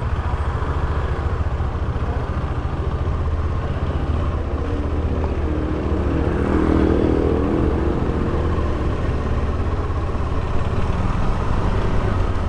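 Motorcycle engine running steadily, a pulsing low rumble that swells louder for a couple of seconds around the middle.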